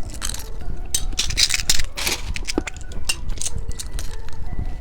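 Irregular clicking and rattling of small hard plastic candy toys and their packaging being handled, a dozen or so sharp clicks spread unevenly through the stretch.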